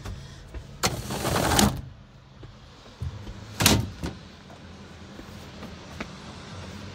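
Fittings in a truck cab being handled: a scraping slide about a second in, then a sharp clack a little after three and a half seconds as a fitting is pushed shut, with a lighter knock just after. A low steady hum underneath.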